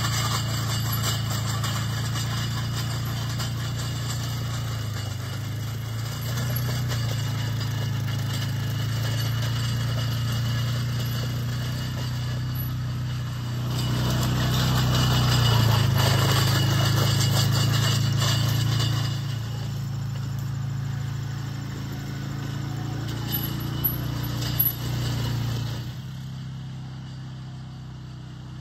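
ATV engine running steadily as it tows a cultipacker across a field, growing louder for a few seconds about halfway through and easing off near the end. A couple of brief knocks come shortly before the engine sound drops away.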